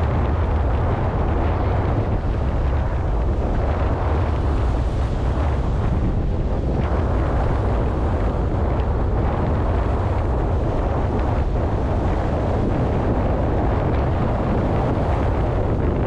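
Strong wind buffeting the microphone with a steady low rumble, over rough sea waves breaking and washing onto a rock breakwater and concrete slipway.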